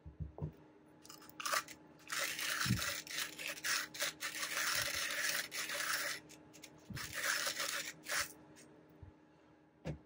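ARCO 2-in-1 coffee grinder, used as a hand grinder, crunching coffee beans as its crank is turned. The grinding starts about a second in, breaks off briefly, resumes, and stops a couple of seconds before the end, with a few dull knocks of the handle around it.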